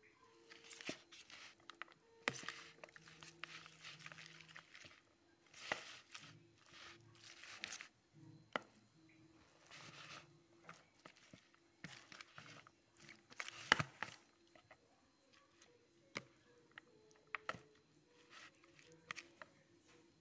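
A metal spoon stirring and tossing cooked instant noodles with their seasoning in a bowl: irregular soft scraping and rustling, with sharp clicks of the spoon against the bowl now and then, the loudest a little before halfway through the second half.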